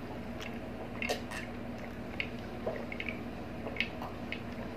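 People drinking calamansi juice from glass mugs: soft swallows and a few faint clicks, over a steady low hum.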